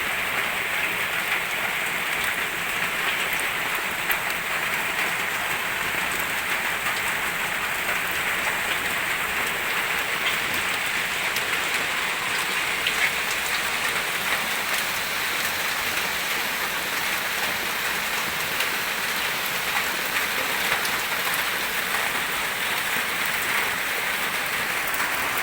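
Steady rain falling, a continuous even hiss with scattered small drop ticks.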